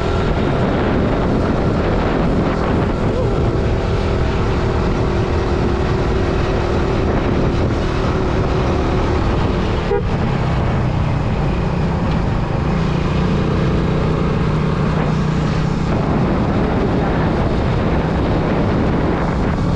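Motorcycle engine running steadily while riding, with road and wind noise rushing on the microphone. The engine note shifts in pitch partway through.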